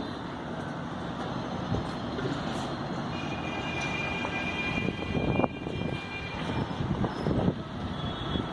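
Steady mechanical rumble of construction-site machinery, with a thin high whine for a couple of seconds mid-way and a few louder knocks near the end.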